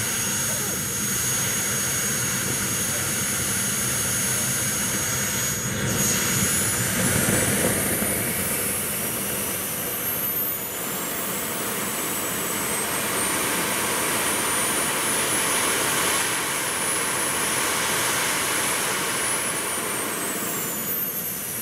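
JetCat P180 model jet turbine running on the ground with a high whine. About six seconds in, the whine climbs in pitch and gets a little louder as the turbine spools up. It holds there, then falls again near the end as the turbine winds back down.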